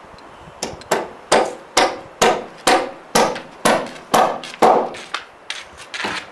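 A hand hammer striking repeatedly on timber at a little over two blows a second: about ten heavy strikes, then a few lighter taps near the end.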